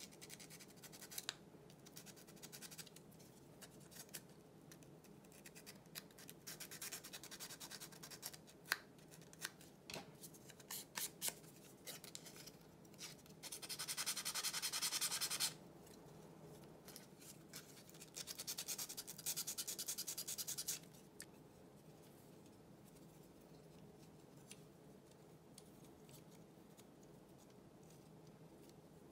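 Thin laser-cut wooden model pieces handled and pressed together by hand: scattered light clicks and taps, and twice near the middle a steady rasping rub of wood on wood lasting two to three seconds.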